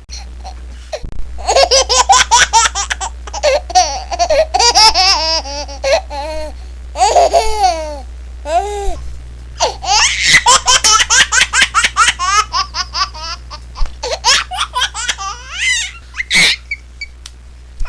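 A baby laughing in two long fits of rapid, high-pitched giggles, with a short break near the middle.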